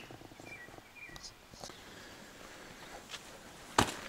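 Quiet outdoor sounds: a few faint short chirps and soft scattered clicks like light steps, then one sharp knock near the end.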